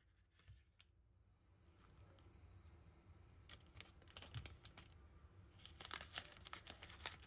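A small packet being handled and torn open: quiet crinkling and tearing in clusters of short crackly clicks, loudest about halfway through and again near the end.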